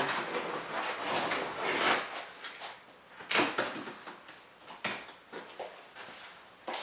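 Cardboard shipping box being opened by hand: packing tape tearing and cardboard flaps scraping, with a few sharp rips about three and five seconds in.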